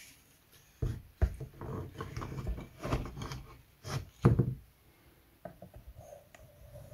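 Handling of a wooden model ship hull on its building board: a few sharp wooden knocks, loudest about a second in and about four seconds in, with scraping and rubbing between as the board is shifted and a small wooden part is picked up.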